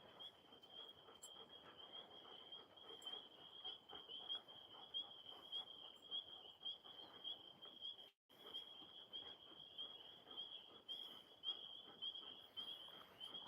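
A steady, high-pitched pulsing trill of small calling animals, faint, with a soft rustling underneath. The sound drops out completely for a moment about eight seconds in.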